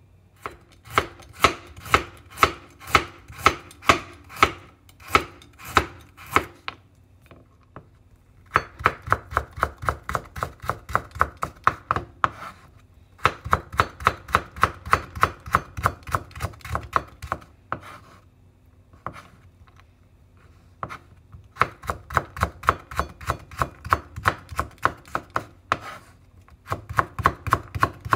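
Kitchen knife chopping a carrot into thin strips on a wooden cutting board. The strokes start slow and even, about two a second, then come in quick runs of four or five a second, with short pauses between the runs.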